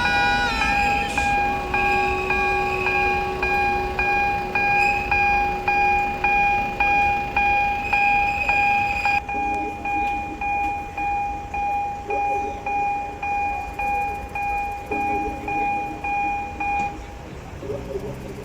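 Alishan Forest Railway train rolling slowly into the station: a steady, high metallic squeal from the wheels over a regular clack of wheels crossing rail joints. The squeal stops near the end as the train comes in.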